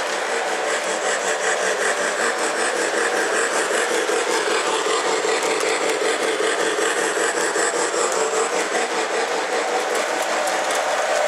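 Model Hudson steam locomotive running along the track: a steady mechanical whir and rumble of its motor and wheels on the rails, with a quick, even ripple in the loudness.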